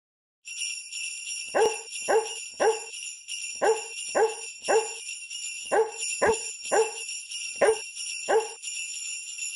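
Sleigh bells jingling steadily while a dog barks in groups of three, eleven short barks in all.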